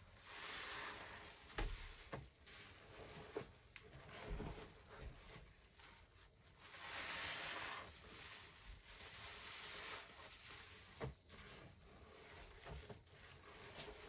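Soaked kitchen sponges squeezed and rubbed by hand in a thick foamy paste: soft wet squishing, with longer hissing squeezes of foam and scattered small pops and clicks.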